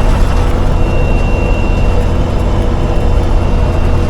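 5-ton military truck's engine and drivetrain running steadily in low gear on a downhill, the engine holding the truck back, with a thin steady high whine over the low drone.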